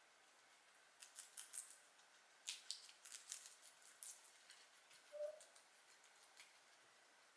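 Guinea pigs chewing fresh vegetables: clusters of quick, crisp crunching clicks, with a brief squeak about five seconds in.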